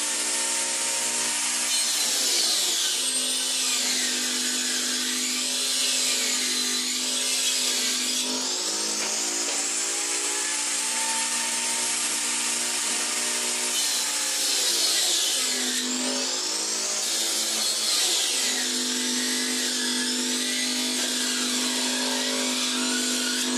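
Table saw (a circular saw blade set through a wooden bench top) running steadily while a sheet of laminated particle board is fed through it and cut. Its hum shifts in pitch a few times over a continuous cutting hiss.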